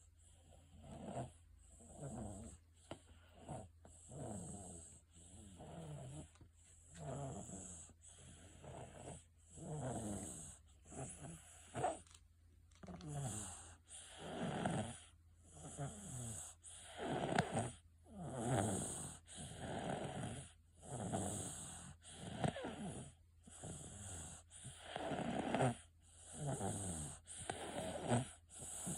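A one-year-old toddler snoring in sleep, a soft snore with each breath, about one every second or so.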